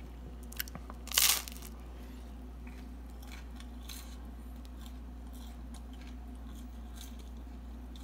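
A person biting and chewing crunchy toasted garlic bread: one loud crunch about a second in, then softer crunching. A steady low hum runs underneath.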